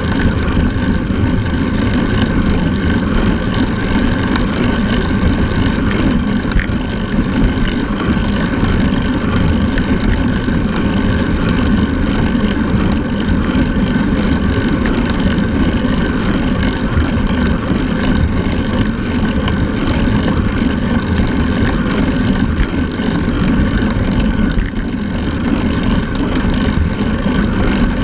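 Steady wind rush on a road bike's handlebar-mounted camera while riding at speed, mixed with the rumble of the tyres on asphalt.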